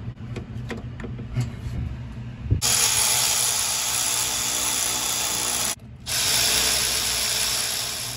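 Cordless power ratchet running on a fastener at the turbocharger. It whirs steadily for about three seconds, stops briefly, then runs again for about two seconds, after a few faint handling clicks.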